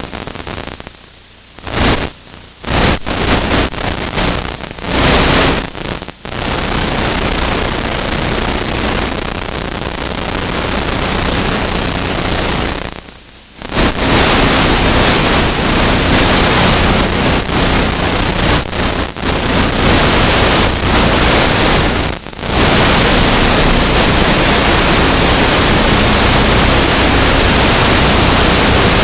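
Loud, even static hiss with no clear sounds in it, cutting out for a moment several times, most plainly about 13 and 22 seconds in.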